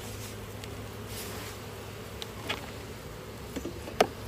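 Honeybees buzzing steadily around an opened hive, with a few light clicks and one sharp knock about four seconds in.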